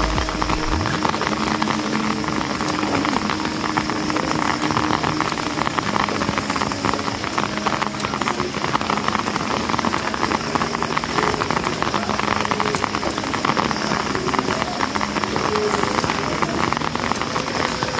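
Heavy rain pouring down steadily, a dense even hiss and patter of drops.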